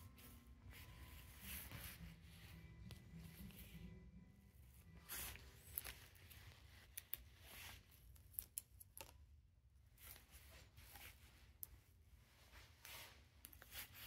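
Near silence: low room hum with faint rustles and scattered light clicks from handling plastic name tags on zip ties attached to fur pelts.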